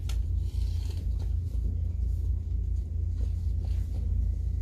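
Steady low rumble with a few faint light clicks and rustles over it.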